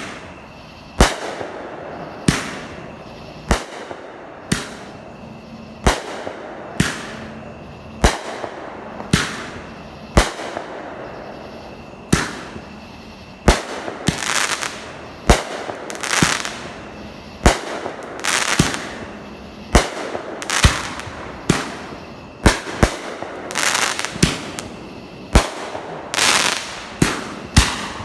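Fireworks going off in a rapid series of loud bangs, about one a second. Some bangs are followed by a brief hiss.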